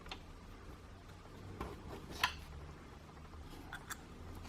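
Quiet room hum with a few faint, short clicks of small objects being handled. The sharpest click comes a little past two seconds in.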